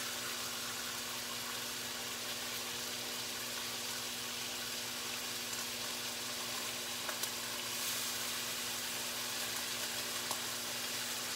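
Melted margarine sizzling steadily in a hot skillet on an electric coil burner, an even hiss with a few small pops.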